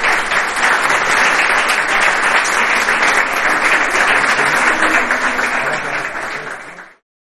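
Audience applauding, a dense steady clatter of many hands clapping that tails off slightly and then cuts off abruptly near the end.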